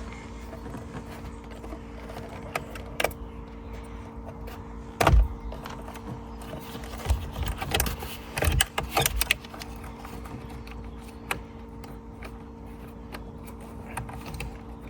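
Plastic clicks and knocks of hands working a wiring plug into a car's steering-wheel airbag, a tight, fiddly fit. One louder knock comes about five seconds in, then a quick run of clicks, over a faint steady hum.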